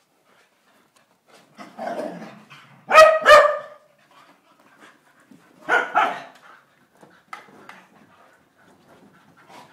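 Small dogs play-fighting: a rough growl, then two sharp barks close together about three seconds in and another pair of barks a few seconds later, with a few small yips and scuffles after.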